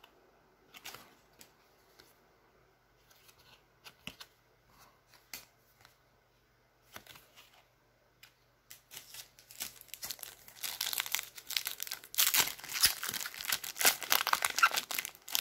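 A foil 2020 Leaf Draft trading-card pack being crinkled and torn open by hand. The rustling builds about halfway through and becomes a loud, dense crackle over the last few seconds. Before that there are only a few faint taps.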